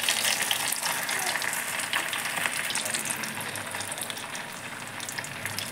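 Bread rolls deep-frying in hot oil in a kadhai: a dense, crackling sizzle, loudest right as a freshly added roll hits the oil and easing gradually as it settles.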